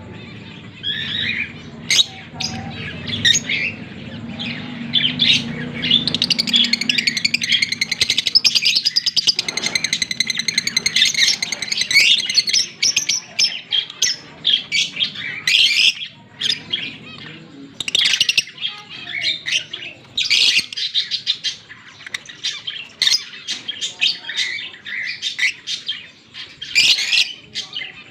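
A pair of Fischer's lovebirds chirping and squawking, rapid high-pitched calls with a stretch of continuous chattering about a third of the way in.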